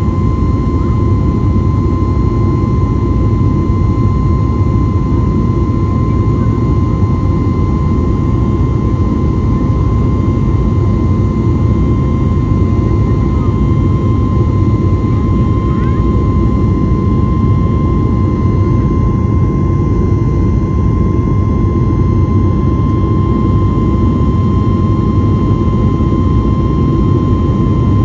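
Boeing 737 MAX 8 cabin noise from its CFM LEAP-1B turbofans: a loud, steady low rumble with a thin steady whine on top.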